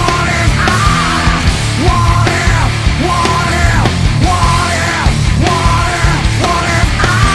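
Loud rock music with a heavy, dense sound and repeated gliding pitch phrases.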